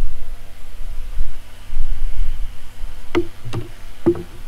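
Three sharp wooden knocks near the end, a hand-carved wooden table leg being knocked against the plank top of a stump table as it is fitted. Before them there is a low, uneven rumble.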